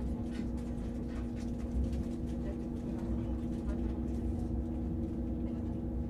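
Inside a German ICE high-speed train moving slowly: a steady low rumble with an even electric hum, and faint passenger voices in the carriage.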